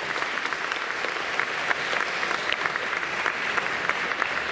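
Audience applauding: many hands clapping together at an even level. The applause greets the announcement that a bill has been passed by vote.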